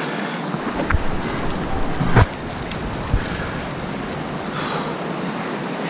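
Whitewater rushing around a kayak as it crosses a rapid, a steady roar of water with wind on the microphone. A sharp thump about two seconds in, with lighter knocks about one and three seconds in.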